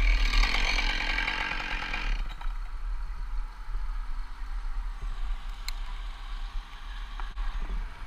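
Chainsaw running for about two seconds and then stopping, with wind rumbling on the microphone throughout.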